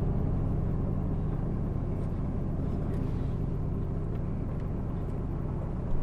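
Steady low rumble of a car driving along the road, engine and tyre noise with no change in pace.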